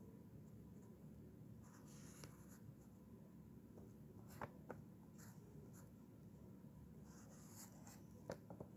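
Faint scratching of a marker drawing on paper in short strokes, with two light taps about four and a half seconds in.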